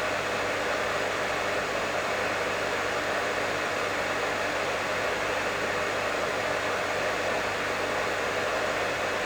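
Professional hair dryer running steadily: an even rush of blown air with a low hum underneath.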